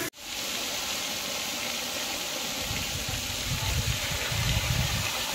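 Water spraying steadily from overhead shower nozzles onto a horse and splashing down, an even hiss. Low rumbling comes in over the second half.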